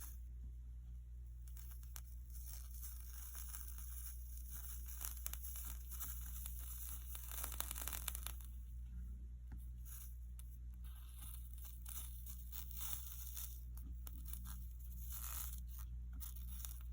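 Soldering iron tip drawing 60/40 solder along the copper-foiled seams of a stained glass panel, the flux sizzling and crackling in short irregular spells over a low steady hum, busiest about halfway through.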